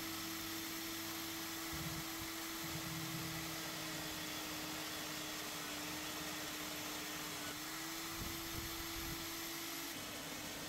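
Benchtop drill press running with a steady hum as its twist drill cuts pin holes through a MagnaCut steel knife blank.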